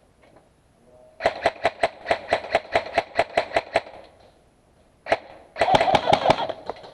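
Airsoft gun firing a rapid string of shots, about six a second for a couple of seconds. After a pause comes a single shot, then a short, faster burst near the end.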